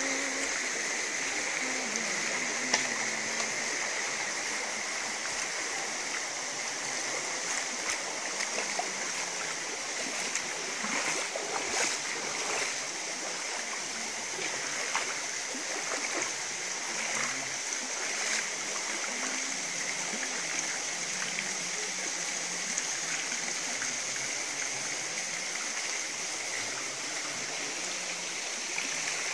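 Running water trickling steadily, with an insect chorus holding a steady high-pitched buzz throughout and scattered faint clicks.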